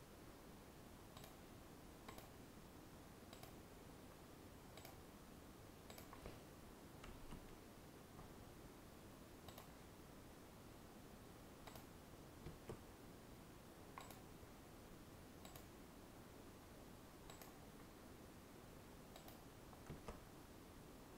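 Faint computer mouse clicks, one every second or so at irregular intervals and a few in quick pairs, over a steady low hiss.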